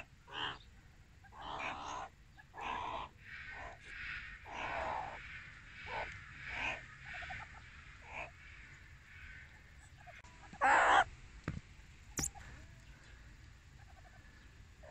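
A series of short, harsh animal calls, roughly one every half second to a second. Then comes a louder, noisier burst about eleven seconds in, followed by a couple of sharp clicks.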